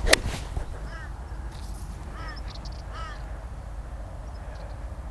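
A golf club strikes the ball with one sharp crack right at the start. A bird then calls three times, short arched calls about a second apart.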